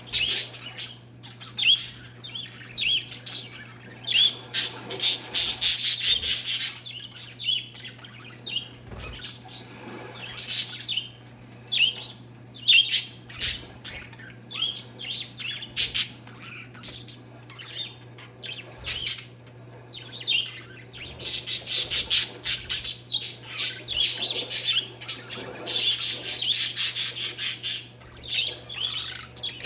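Parakeets and zebra finches chirping and squawking together in a steady stream of short high calls, thickening into stretches of rapid chatter several times. A steady low hum sits underneath.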